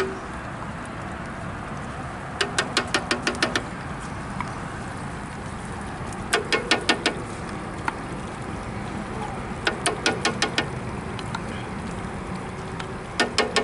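Handle of a wooden spoon jabbed into an opened tin can to work out thick canned contents, in four short bursts of quick knocks, about eight a second, over steady background noise.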